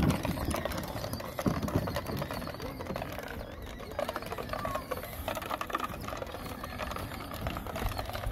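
Kids' ride-on Ford F-150 toy truck driving, running on a swapped-in DeWalt 20V power-tool battery: its small electric drive motors and gearboxes whir steadily while the plastic wheels crackle and rattle over dirt and grass, with many quick clicks throughout.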